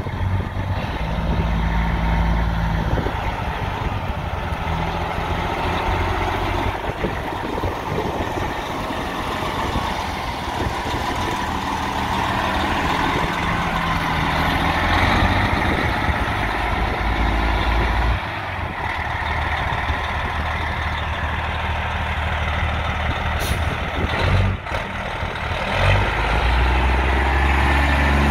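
Diesel engine of a 2006 Freightliner truck tractor running as the truck drives away, turns and comes back, its engine note rising and falling several times as it pulls and slows.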